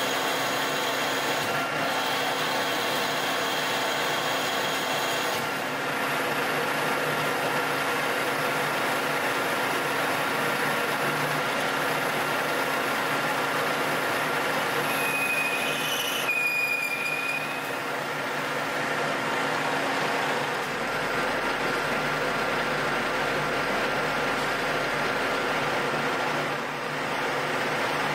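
Colchester Master 2500 engine lathe running under power while a carbide tool turns and bores a metal spacer blank: a steady whine from the geared headstock with several held tones, and a brief high-pitched squeal a little past halfway.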